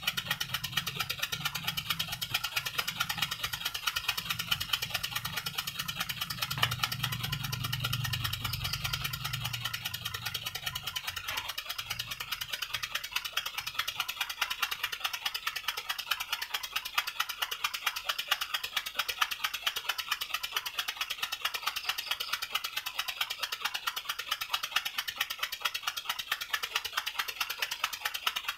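Small homemade oscillating-cylinder steam engine running fast, with a rapid, steady ticking chuff as its single cylinder rocks and exhausts. A low hum underneath fades out about ten seconds in.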